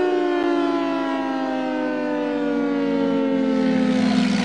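Civil-defence-style warning siren sounding for a tornado warning: one long wail sliding slowly down in pitch.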